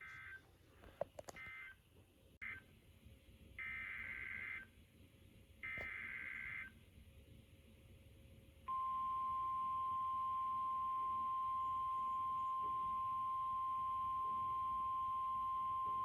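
Emergency Alert System SAME data tones from a NOAA Weather Radio broadcast: several short buzzy two-pitch data bursts, then two longer ones about four and six seconds in. Together they mark the end of one alert message and the header of the next. About nine seconds in, the steady single-pitch 1050 Hz weather radio alert tone starts and holds.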